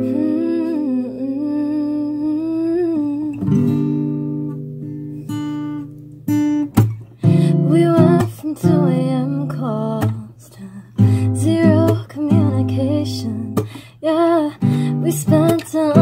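Acoustic guitar playing sustained strummed chords, with a woman singing over it; her singing comes in more fully about seven seconds in.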